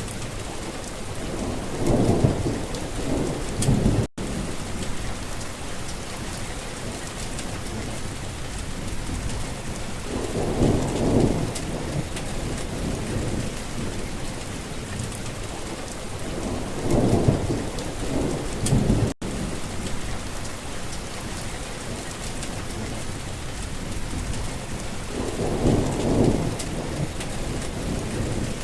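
Steady heavy rain hissing, with rolls of thunder rumbling up about four times, each lasting a couple of seconds. The sound cuts out for an instant twice.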